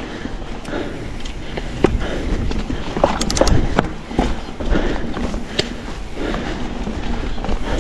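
Mountain bike running down a rough trail: a steady rumble of tyres over dirt and stones, with sharp clicks and knocks as the bike rattles over bumps, most densely about three seconds in.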